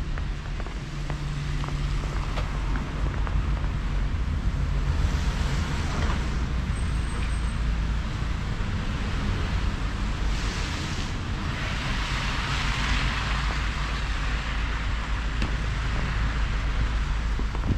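City street traffic: cars passing one after another, each a swell of tyre hiss (about five seconds in, about ten seconds in, and a longer one near twelve to fourteen seconds), over a steady low rumble.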